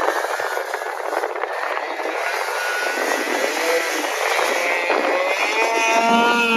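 Snowmobile running hard through deep snow, a dense rushing engine-and-track noise. A pitched engine whine comes up over the last second or so.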